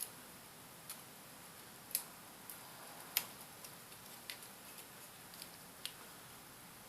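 Light, irregular clicks and taps from small laptop parts being handled during reassembly, with the two sharpest clicks about two and three seconds in.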